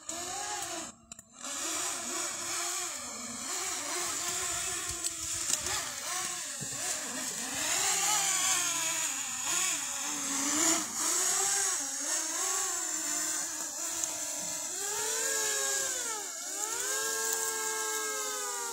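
A dog whining and howling in long, wavering pitched calls, ending with two long calls that rise and fall in pitch.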